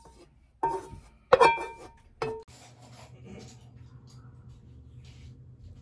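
Three sharp clinks of a frying pan and utensil against each other and a plate, each with a brief metallic ring, as pasta is scraped out of the pan onto the plate; the loudest comes about a second and a half in. After that a faint low steady hum.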